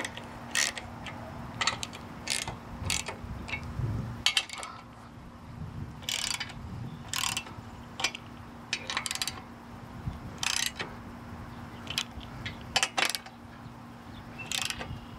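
Hand ratchet wrench clicking in short bursts, stroke after stroke, as it tightens a lock nut onto a bolt, with brief pauses between strokes.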